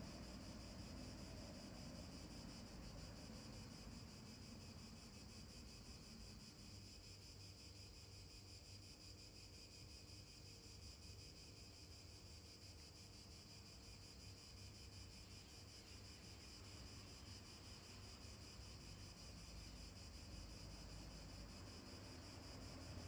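Near silence: faint, steady outdoor background with an even high hiss and no distinct events.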